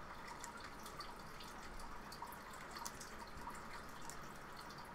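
Quiet room tone: a low steady hiss with faint, irregular small clicks scattered through it.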